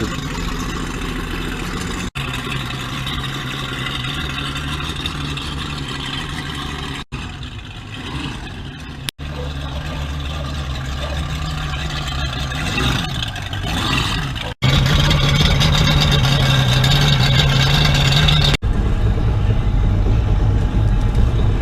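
Powerboat engine running at low speed with a steady low tone, cut off sharply several times, and louder from about two-thirds of the way through.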